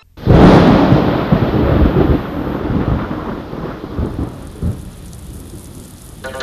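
Thunder sound effect: a sudden loud thunderclap about a third of a second in, then rumbling that slowly fades over several seconds.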